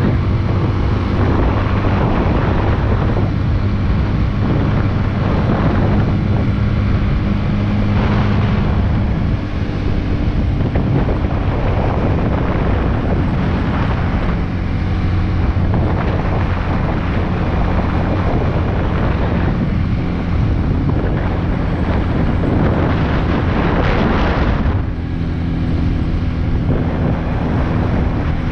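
Big Boy SuperLight 200cc motorcycle engine running steadily at cruising speed, with heavy wind buffeting on the microphone. The engine note dips briefly around nine seconds in and again near twenty-five seconds.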